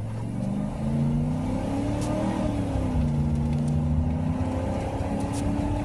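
Ford F-150 SVT Lightning's 5.8-litre V8 under hard acceleration, heard from inside the cab. The engine note climbs, dips briefly about two seconds in as the automatic shifts up, then pulls steadily again.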